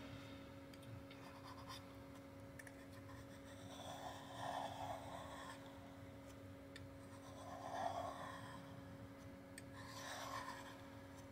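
Faint scraping and rubbing of a flat scraper working softened battery adhesive off the aluminium top case of a MacBook Pro, in three spells about four, eight and ten seconds in, over a low steady hum.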